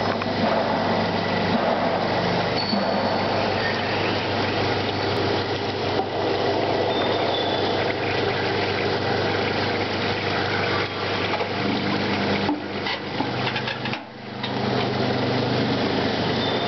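Seam welding machine running: steady machinery noise with a low electrical hum, dipping briefly about fourteen seconds in.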